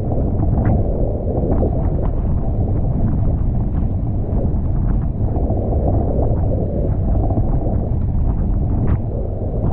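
Strong, steady wind noise buffeting the microphone aboard a sailing Tornado catamaran, with the rush of water along the hulls mixed in.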